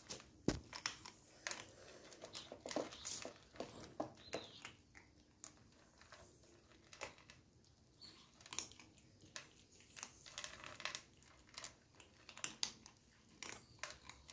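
Two kittens crunching dry kibble: a quick, irregular run of small crunches and clicks as they chew.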